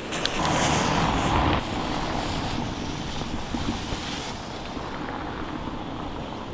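Fireworks going off: a sharp crack, then a loud rushing hiss for about a second and a half that drops to a fainter hiss and slowly fades.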